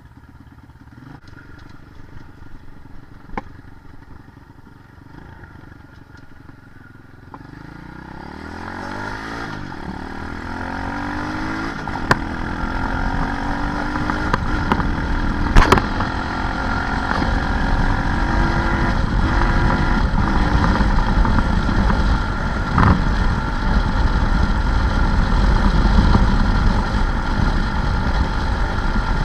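Small off-road vehicle engine, faint at first, then from about a third of the way in rising in pitch and growing steadily louder until it runs strongly, with a few sharp clicks over it.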